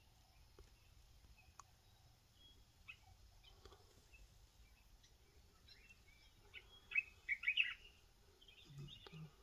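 Wild birds chirping in short, scattered calls over a quiet background, with a quick run of louder chirps about seven seconds in. A few soft low thuds come near the end.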